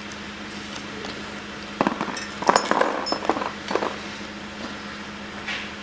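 Steel parts of a sawn-through tapered roller hub bearing clinking and rattling as the cut cage and rollers are worked apart by hand. There is a cluster of clinks from about two seconds in to about four seconds, over a steady low hum.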